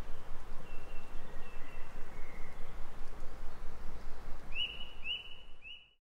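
Forest ambience recording: a steady background hiss with faint bird chirps, then three short, louder bird calls in quick succession near the end as the sound fades out.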